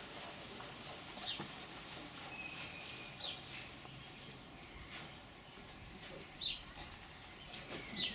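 A bird calling in short, high, falling chirps, spaced a second or two apart, over a faint steady background.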